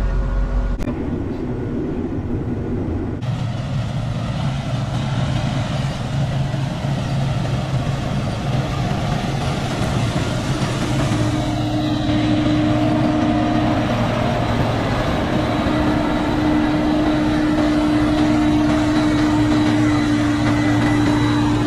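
Heavy farm machinery running steadily under load, a continuous engine hum, changing abruptly a couple of times near the start.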